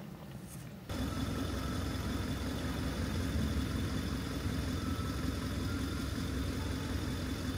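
Steady low mechanical rumble with a faint thin high whine above it, starting abruptly about a second in.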